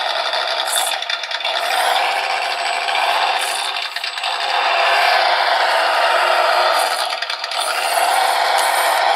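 PRC QX-4 1/18 mini rock crawler's small N20 brushed motor and gears whirring as it crawls over foam rock terrain, with tyres scraping and the little chassis rattling. The sound swells about halfway through.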